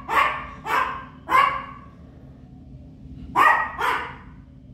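Papillon barking: three sharp, high yaps in quick succession, a pause of about two seconds, then two more.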